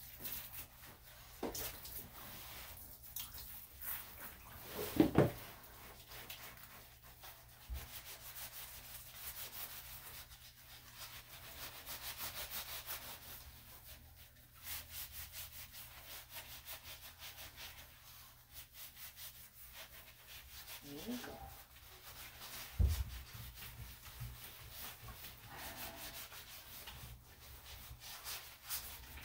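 Hands scrubbing shampoo into a wet small dog's coat in a bathtub: a continuous wet rubbing, with a couple of dull knocks about five seconds in and again near the end.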